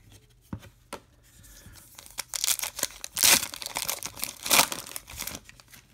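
Foil wrapper of a Topps trading card pack being crinkled and torn open by hand: a few small handling clicks, then from about two seconds in a run of crackling rips, loudest twice, near the middle and again shortly before the end.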